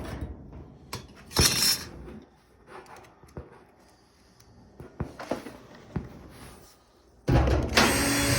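A power drill driving a bolt into the dryer's wire cover in two short runs, one about a second in and a longer one near the end, with scattered knocks and clicks from the cover being handled between them.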